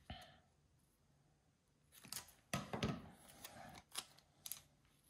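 Faint crackling and snipping as strips of clear adhesive tape are handled and cut with scissors, with a few light clicks near the end as things are set down on the cutting mat.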